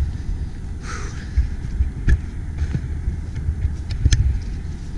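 Wind rumbling on a handheld camera's microphone, with scattered knocks and clicks of handling and footsteps.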